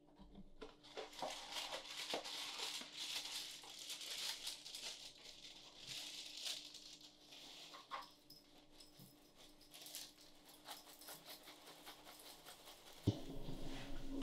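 Dry cereal poured from its box into a bowl: a dense, crackling rattle of pieces for several seconds that thins to scattered ticks. A sudden low thump comes near the end.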